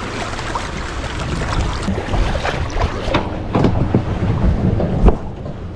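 Water sloshing and splashing against the side of a boat, with wind buffeting the microphone and a few sharp splashes or knocks, the loudest about five seconds in.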